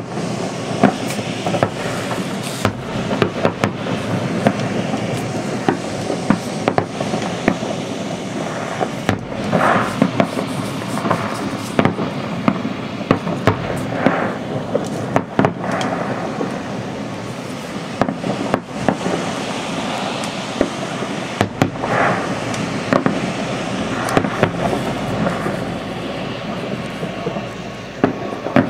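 Aerial fireworks going off in a continuous barrage: many sharp bangs in quick, irregular succession over a steady crackle.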